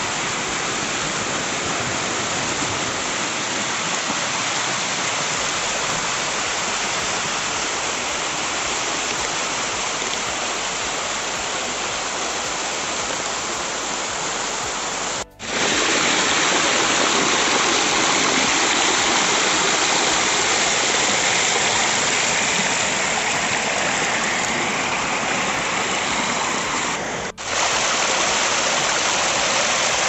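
Water of a small waterfall cascading and splashing over rock close to the microphone: a steady, full rush. It breaks off for an instant about halfway and again near the end, and is a little louder after the first break.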